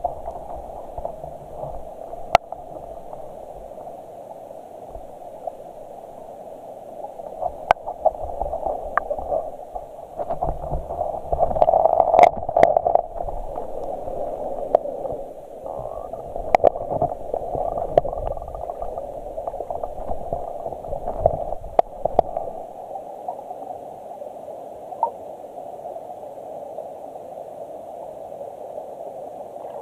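Stream water heard underwater: a steady muffled rush with scattered sharp clicks and ticks. From about 7 to 22 seconds in it grows louder, with a low rumble and more frequent clicks, loudest around 12 seconds in.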